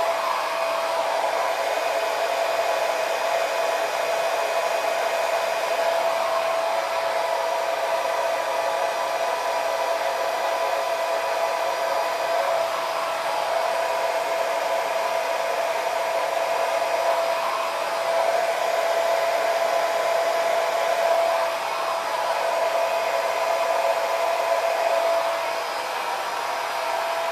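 Blow dryer with a diffuser attachment running steadily on its medium setting: an even rush of air over a constant motor whine, dipping slightly in loudness near the end.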